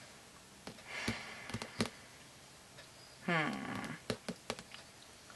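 Hands handling a cardstock paper pad: soft paper rustling about a second in and a few small clicks and taps of fingers on the pad. A short bit of voice comes about three seconds in.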